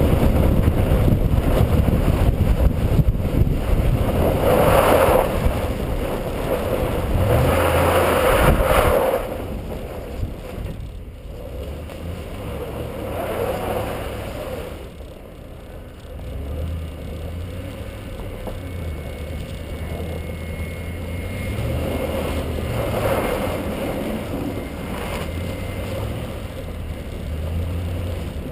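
2010 Ford F-150 XLT's V8 engine running as the pickup drives and slides on a snow-covered ice track, heard from outside the truck's body. Several surges of engine and tyre-on-snow noise come over the low engine drone, the loudest in the first nine seconds, after which it settles quieter.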